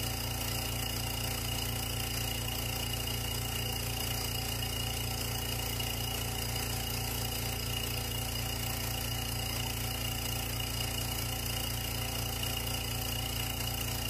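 Small electric vacuum pump running steadily, drawing a vacuum on a filter flask to pull perfume through filter paper. It makes a constant motor hum with a strong low drone and a few steady tones, and it does not change.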